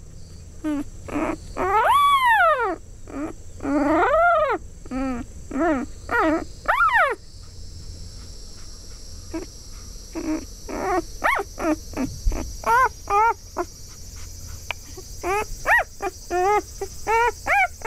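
Four-day-old Labrador Retriever puppy crying for its mother with the distinctive high voice of a newborn pup. The calls rise and fall in pitch: longer wails first, a pause about seven seconds in, then a quick run of short squeaky cries.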